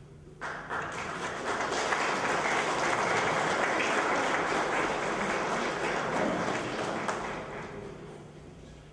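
Audience applauding in a hall: the clapping starts about half a second in, holds steady through the middle and dies away near the end.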